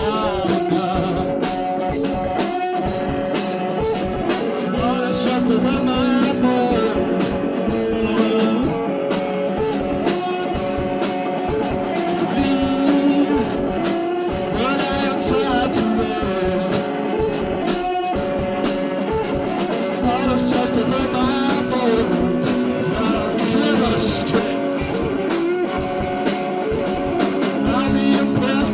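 Live blues-rock band playing an instrumental passage: electric guitar over a steady drum beat, loose and out of tune.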